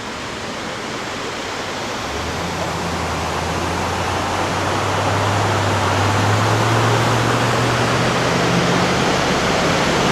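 Waterfall rushing: a steady, even roar of falling water that grows gradually louder. A low steady hum joins it about two seconds in.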